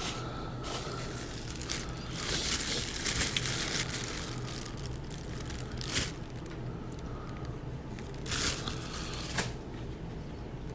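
Paper wrapping crinkling and crackling as it is handled, in an uneven run of bursts: one longer stretch, then short sharp crackles near the end.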